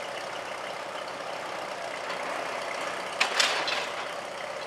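Antique Wettlaufer Brothers flat-belt-driven cement mixer running, giving a steady mechanical noise, with one sudden sharp noise about three seconds in.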